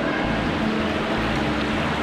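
Steady wash of splashing water and water noise in an indoor swimming pool hall.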